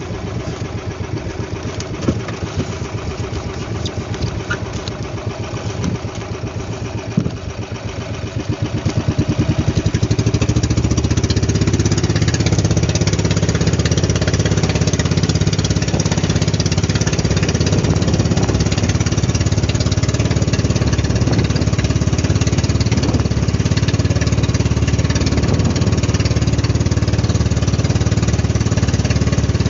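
Engine of a small outrigger banca running under way, growing louder and steadier about a third of the way in as it picks up speed, with water splashing off the hull and outrigger.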